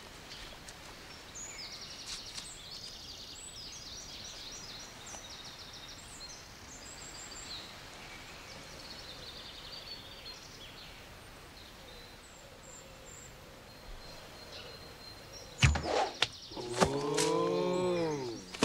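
Woodland birds chirping over quiet outdoor ambience. Near the end an arrow is shot and strikes home with sharp thuds, followed by a loud, brief pitched sound that rises and falls.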